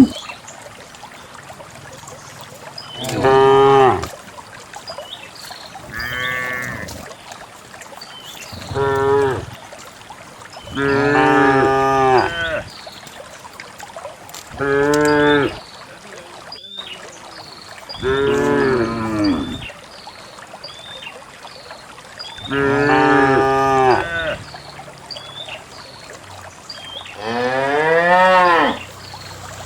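Cows mooing, about eight separate moos a few seconds apart, each lasting a second or two; the last one rises in pitch.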